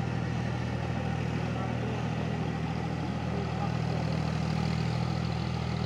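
John Deere 5050D tractor's three-cylinder diesel engine running steadily under load in low-range third gear, driving a rotary tiller through a flooded field.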